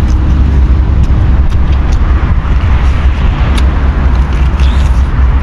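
Steady, loud rain noise with a deep rumble underneath and a few faint sharp clicks.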